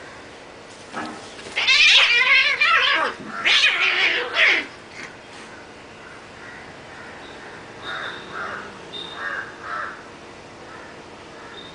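Cats yowling in a fight: two long, loud, wavering yowls in the first few seconds, then four short, quieter calls a few seconds later.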